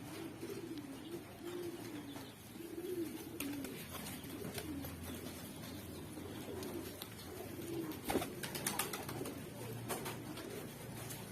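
Domestic pigeons cooing, one coo after another in a repeated rise and fall. A few sharp clicks or taps come about eight seconds in.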